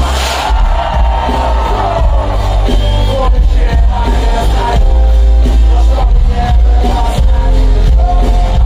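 Loud live hip-hop music through a concert PA: a backing track with heavy bass and a steady beat.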